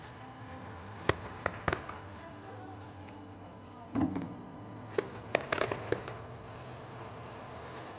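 Fireworks going off: a scatter of sharp bangs and crackles over a steady background hiss, in a cluster about a second in and another from about four to six seconds in.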